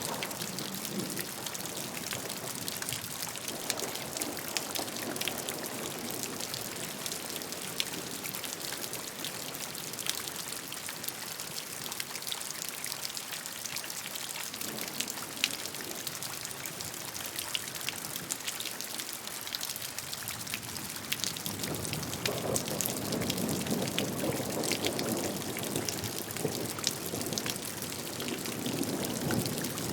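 Steady rain falling: a constant hiss dotted with many sharp individual drop hits. About two-thirds of the way through, a fuller, lower rush of water builds and then stays.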